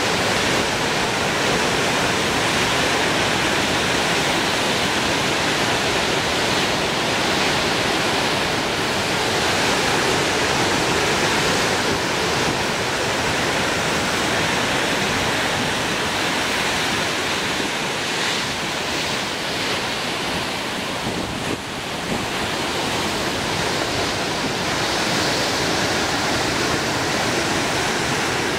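Steady rushing noise of wind and surf, with no engine sound from the passing ships.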